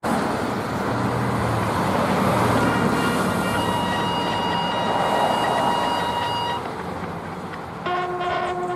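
Road traffic noise, a steady hiss of passing vehicles, with a faint steady tone in the middle and a louder steady pitched tone that comes in suddenly near the end.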